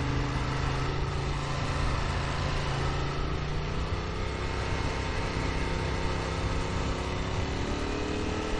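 Ducati Monster 1200 R's 1198 cc L-twin engine running at a low, steady cruise, heard from the rider's seat over a steady rushing noise. The engine note rises slightly in the second half.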